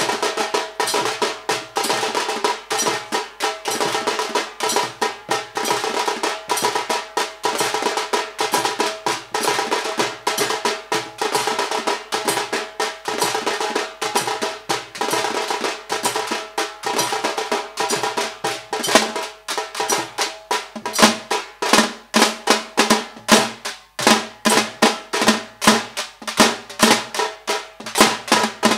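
Malbar (Tamil) drums played fast in a dense, driving rhythm. About two-thirds of the way in, the strokes turn sharper and more spaced out, with deep thuds among them.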